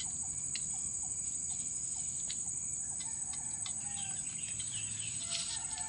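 Steady high-pitched chorus of crickets, with scattered light clicks and faint short bird calls.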